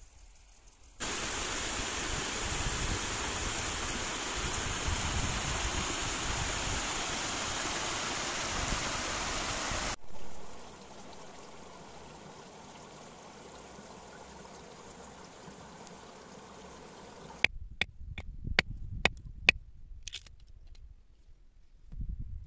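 Rushing water, a steady even hiss that cuts in about a second in and cuts off abruptly around ten seconds, followed by a fainter steady hiss. Near the end come several sharp clicks or knocks in quick succession.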